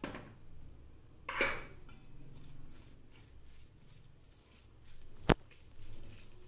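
A metal spoon stirring minced mutton in a stainless-steel bowl: a few soft knocks against the bowl, then one sharp click about five seconds in.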